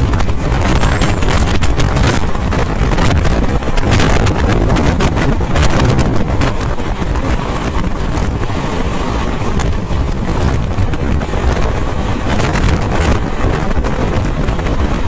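Superfast express train running at speed, heard from on board: a steady rumble of wheels on the track with wind buffeting the microphone.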